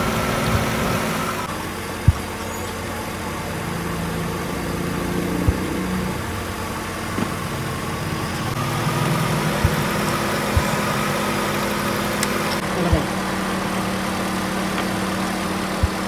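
Honda car engine idling steadily, with a few short sharp knocks scattered through.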